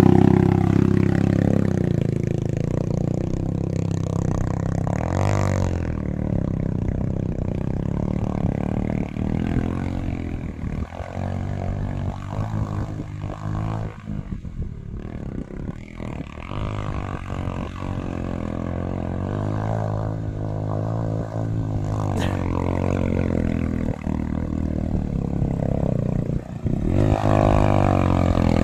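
Bajaj Boxer motorcycle's single-cylinder engine running and revving, its pitch rising and falling, as it pushes through floodwater. Water splashes and clatters from the wheels, most busily through the middle stretch.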